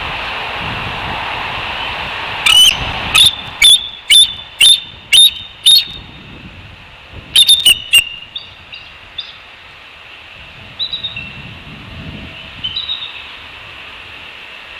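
A bird calling loudly: a run of seven sharp, evenly spaced notes about half a second apart, then three more in quick succession, then a few softer chirps. A steady hiss lies under the opening seconds.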